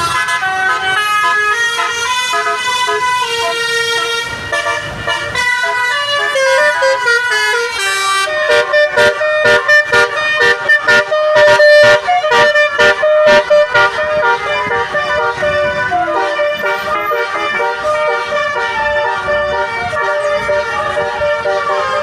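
Bus 'telolet' musical horn (Basuri multi-tone horn) playing a melody of changing notes. Partway through it breaks into a fast run of short stuttering hoots, the loudest part, then goes back to held, changing notes.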